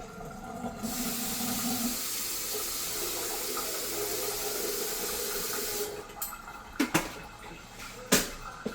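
Kitchen tap running in a steady stream for about five seconds, starting about a second in and then shut off, as mint leaves are rinsed under it. A few sharp knocks follow near the end.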